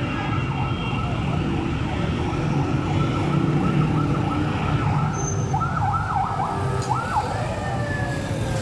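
Steady low traffic rumble with a warbling, siren-like tone wavering up and down above it, and a slow downward-sliding tone near the end.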